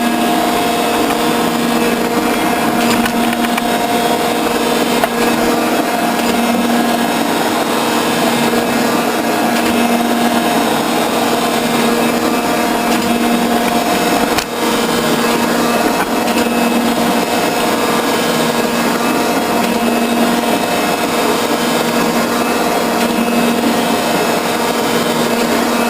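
Metal shaper running through a finishing cut in steel with a shear tool. Its motor hums steadily, and a tone swells and fades every couple of seconds as the ram strokes back and forth. The sound drops briefly for a moment about halfway through.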